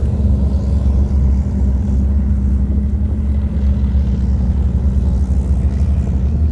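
A column of tracked armoured vehicles, self-propelled howitzers followed by tanks, driving past. Their diesel engines and tracks make a steady, loud low rumble with a constant hum.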